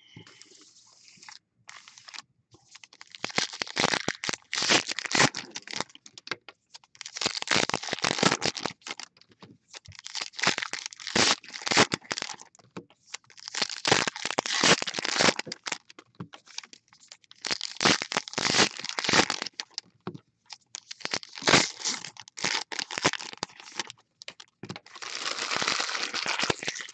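Foil trading-card pack wrappers being torn open and crinkled by hand, one pack after another, in about seven bursts of crackling a few seconds apart.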